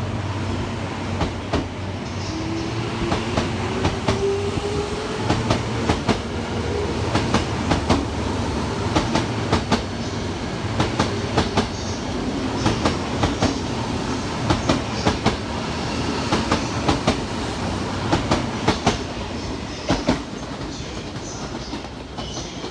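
Tokyo Metro 05 series commuter train pulling away and accelerating, its traction motors whining up in pitch over the first few seconds under a steady rumble. A long run of sharp wheel clicks follows, often in quick pairs, as the bogies cross rail joints and points, then dies away near the end.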